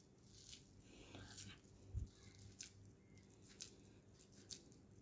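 Near silence with faint, scattered soft squishes and small crackles of a hand scooping and rolling sticky minced chicken kabab mixture in a bowl, and one soft low bump about two seconds in.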